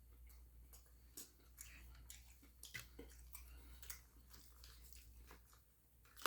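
Faint, close-up chewing: irregular soft mouth clicks and smacks of a person eating, over a low steady hum.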